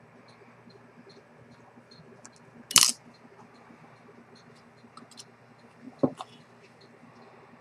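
Small hard objects handled on a watchmaker's bench: one sharp metallic clink about three seconds in and a duller knock about six seconds in, with faint light ticks between.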